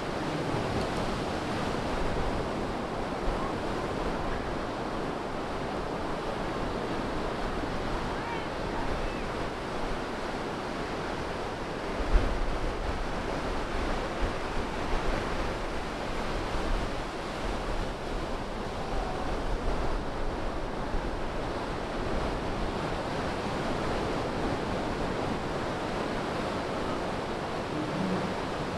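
Ocean surf breaking and washing up the beach around the pier pilings, a steady wash of surf. Low rumbles of wind on the microphone run under it, with a sharp low thump about twelve seconds in.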